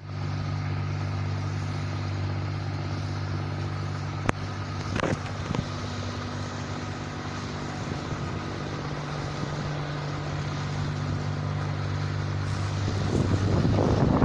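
Engine of an NH 8070 rice combine harvester running steadily, with a sharp click about four seconds in, and growing louder and rougher near the end.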